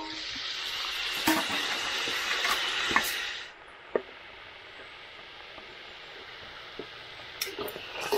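Marinated chicken pieces sizzling in hot oil in a pan, with a few sharp clicks. The sizzle drops to a quieter steady hiss about three and a half seconds in.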